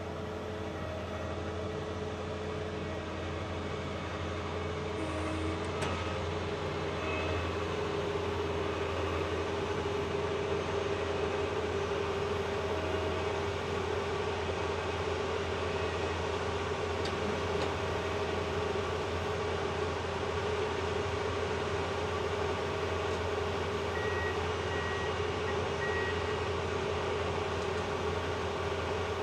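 Fendt Ideal 7T combine running close by, a steady engine drone with a constant whine over it. Three short high beeps sound near the end.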